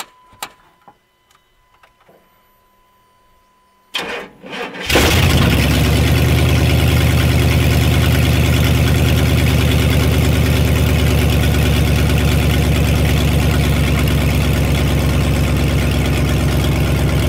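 Engine of a 1998 GMC pickup, just rebuilt and fitted with headers, cranking and catching about four to five seconds in, then running loudly at a steady, evenly pulsing idle. Before the start there are a few clicks and a faint steady tone.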